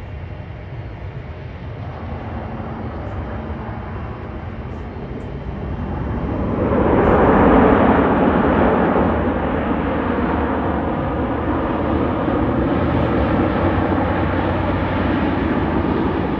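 Jet engine noise of a Boeing 737-700 on landing, from its CFM56-7B turbofans. A distant rumble swells sharply about six to seven seconds in as the airliner comes down the runway, peaks briefly, then holds as a steady loud rush.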